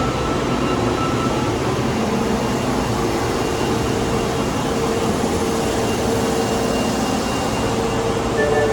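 Osaka Metro Tanimachi Line subway train running at the station platform: a steady rumble of wheels and motors with a steady hum over it.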